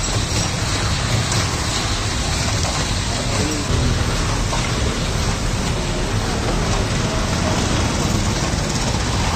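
Steady hum and hiss of a rotating refrigerated ice-cream roller drum running, its motor turning the frozen drum without a break.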